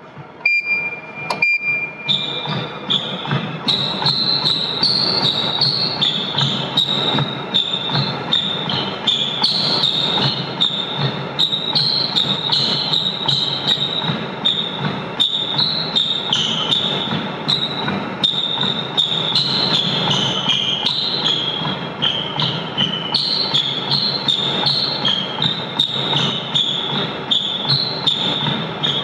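Treadmill running under a person walking: steady, evenly spaced footfalls thudding on the belt, over a high whine that wavers in pitch. Two short beeps about a second apart near the start.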